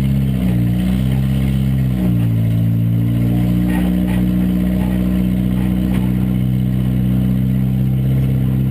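Small demolition-derby car's engine running, its pitch wavering at first, then stepping up about two seconds in and holding steady at a raised speed.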